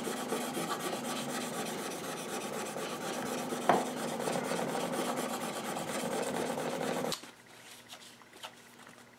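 Steel plane iron rubbed back and forth on wet, fine-grit wet-or-dry sandpaper on glass, a steady scraping rasp while the bevel is honed to raise a burr, with one brief tap midway. The rubbing stops suddenly about seven seconds in, leaving only a few faint clicks.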